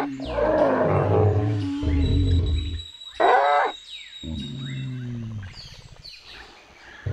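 Cartoon dinosaur roars and grumbles as sound effects for the T-Rex. There are two louder roars, one at the start and one about three seconds in, with lower grumbles between them.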